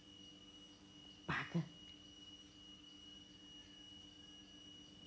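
A faint steady high-pitched whine, with a brief low vocal sound from a person about a second and a half in.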